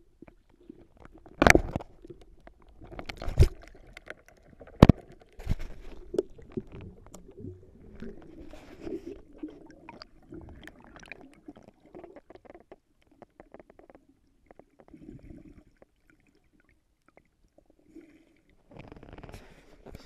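Muffled underwater sound heard through a waterproof action-camera housing held below the surface: three sharp knocks in the first five seconds, then low, uneven gurgling and bubbling from the swimmer's movements and breath.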